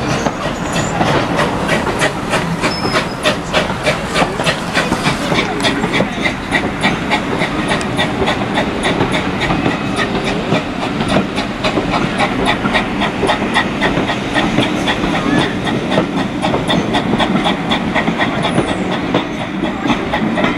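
Steam-hauled passenger train running, heard from a carriage window: continuous wheel and track noise with a fast, regular beat that becomes sharper from about six seconds in.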